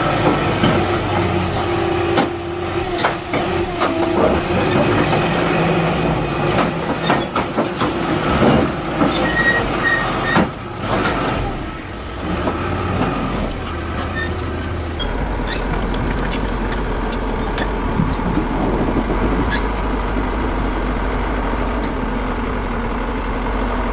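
Heavy machinery engines running, with many knocks and clanks over the first half. About fifteen seconds in the sound switches abruptly to a steadier engine drone.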